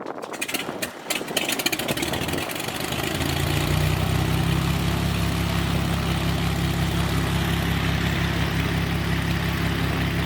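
An engine is cranked with rapid ticking and catches about three seconds in, then settles into a steady idle.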